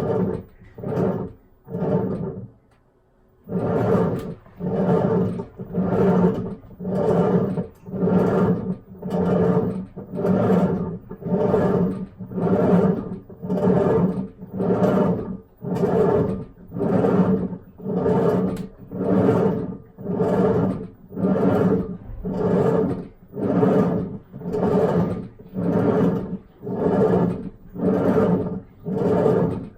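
Hitachi BeatWash washing machine agitating with a loud groan on every stroke, about one a second, with a brief pause near the start. This is the abnormal noise the machine makes while washing.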